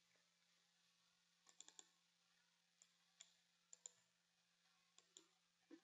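Faint clicks of a computer mouse: a quick run of about four clicks roughly a second and a half in, then single and paired clicks every half second to a second.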